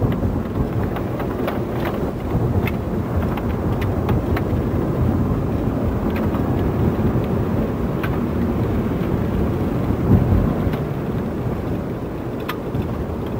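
A car driving along a road: a steady low rumble of tyres and engine, with faint scattered clicks and one brief louder bump about ten seconds in.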